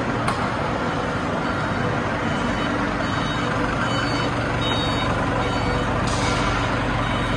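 Factory machinery running steadily: a continuous mechanical drone with a low hum, a few faint high beeps and clicks on top.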